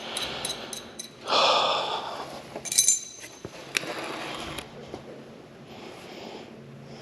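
A long, heavy exhale of frustration about a second in, then a sharp metallic clink of a tool with a short ring, with a few lighter clicks and softer breaths around it.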